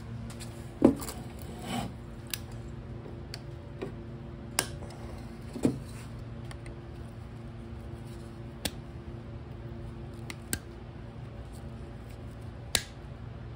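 Scattered small clicks and knocks of hand tools and plastic parts being handled, among them needle-nose pliers working the snowmobile's starter pull cord, with a steady low hum behind them.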